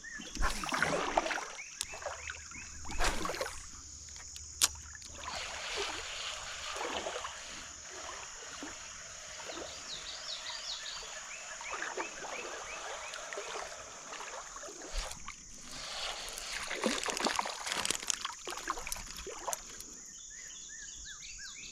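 Creek-side outdoor sound: scattered splashes and rustling at the water's edge over a steady high-pitched insect drone, with short runs of chirps now and then.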